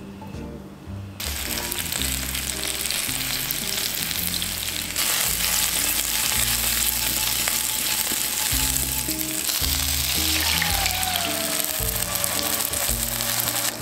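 Baby potatoes sizzling in hot oil in a pan. The sizzle starts about a second in and gets louder around five seconds. In the last few seconds soy-sauce seasoning and water are poured in, with a falling pouring tone over the sizzle.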